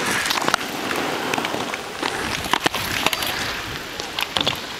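Stunt scooter wheels rolling over rough asphalt, with several sharp clacks as the scooter hits the ground during flatland tricks.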